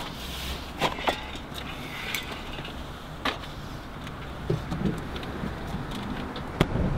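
A few sharp clinks and knocks as aerosol spray paint cans are handled in plastic baskets in a car boot, then the car's tailgate is shut with a loud slam near the end.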